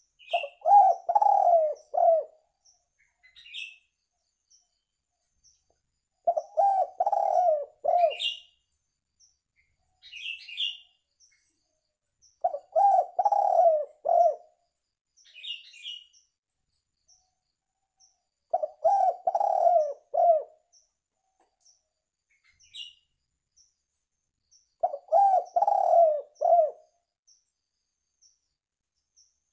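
Spotted dove (tekukur) cooing: five phrases of several low notes each, repeating about every six seconds. Short higher chirps of another small bird come between the phrases.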